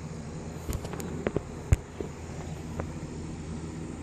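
A steady low background hum with a handful of sharp taps and knocks in the first three seconds, the loudest a little under two seconds in.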